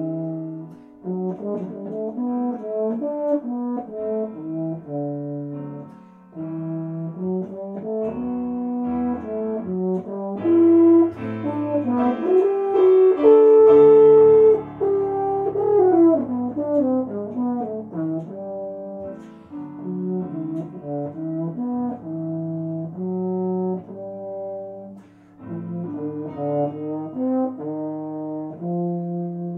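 Euphonium playing a solo melody in phrases broken by short breaths. About halfway through it climbs to its loudest note, holds it, then falls away.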